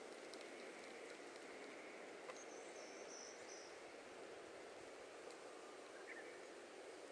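Faint outdoor ambience: a soft steady hiss with a few tiny ticks, and a brief high chirp about three seconds in.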